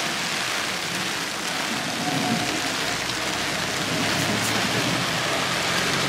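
Heavy rain pouring onto flooded pavement and parked cars, a steady hiss of rain on standing water. A low rumble joins it about two seconds in.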